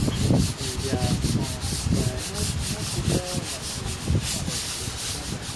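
Rhythmic scrubbing strokes, about four to five a second, each a short hiss, mixed with irregular low rumbling thumps.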